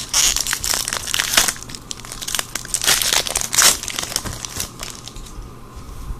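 Foil wrapper of a Magic: The Gathering booster pack being torn open and crinkled by hand. It makes a run of crackly rustles that thin out after about four and a half seconds.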